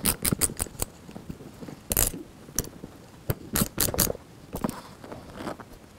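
Small metal nuts being handled and fitted onto screws, clicking and scraping in irregular clusters of sharp clicks.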